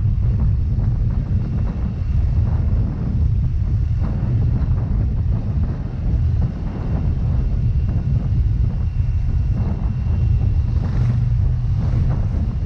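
Wind buffeting the microphone over a Yamaha Mio Gravis scooter's engine as it is ridden along, a steady low rumble.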